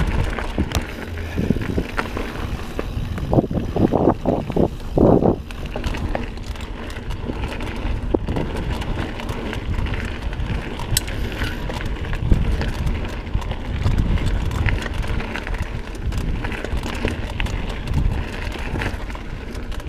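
Mountain bike riding along a dirt singletrack: a steady rumble of tyres on dirt and leaves with the bike rattling, and wind buffeting the microphone. A few louder bumps come about three to five seconds in.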